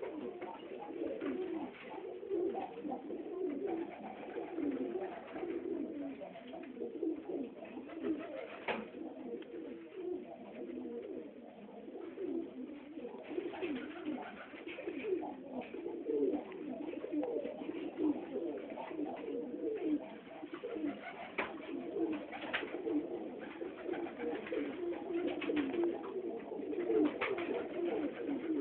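Many Budapest highflyer pigeons cooing together in an enclosed loft, a continuous chorus of overlapping low coos. A few sharp wing claps stand out here and there.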